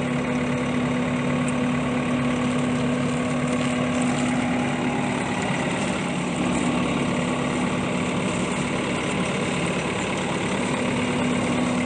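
An engine idling steadily with a constant, even hum, while a hose sprays water.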